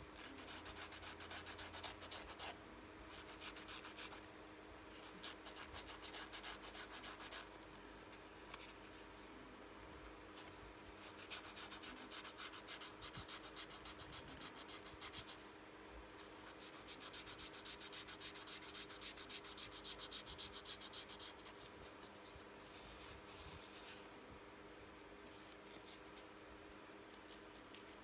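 Fine 600-grit sanding sponge rubbed in quick short strokes over a small wooden wheel hub, a light scratchy rasp in several bouts with short pauses between them: the finishing pass of the sanding.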